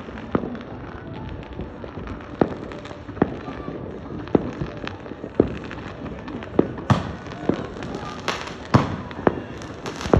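Fireworks going off: irregular sharp bangs over a steady background crackle, coming thicker and louder in the last few seconds.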